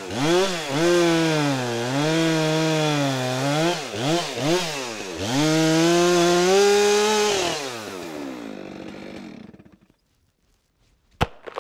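Two-stroke chainsaw making the felling cut at the base of a standing tree. The saw runs at high revs, eases off and revs up again several times around the middle, then winds down and stops about ten seconds in. A single sharp knock comes near the end.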